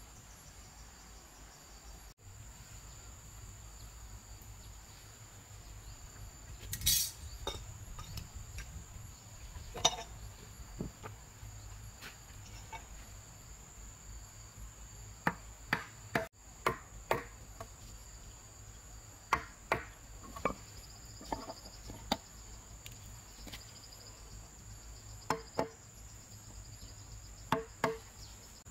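Hammer striking a chisel into a solid wooden beam: sharp knocks in small irregular groups through the second half, with a clatter about seven seconds in. A steady high insect drone runs underneath.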